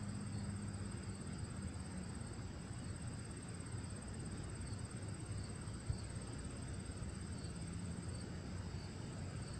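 Insects chirring steadily in a high, finely pulsing tone over a low, steady hum.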